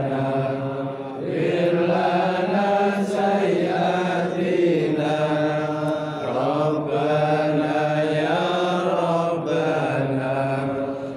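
Male voices chanting an Islamic devotional chant in unison, in long drawn-out melodic phrases that pause briefly every few seconds.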